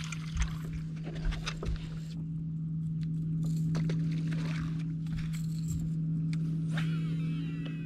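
Steady electric hum of a bass boat's bow-mounted trolling motor, with light metallic clicks and rattles of fishing tackle being handled in the first two seconds.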